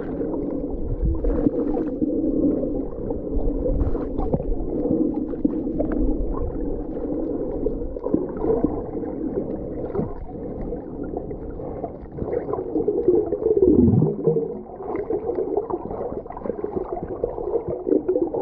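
Muffled underwater sound picked up by a camera held below the surface among snorkellers: water moving and gurgling, with small knocks and a low falling groan about fourteen seconds in.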